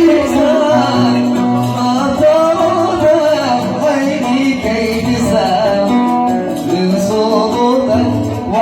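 An oud playing a Yemeni Sanaani song while a man sings over it.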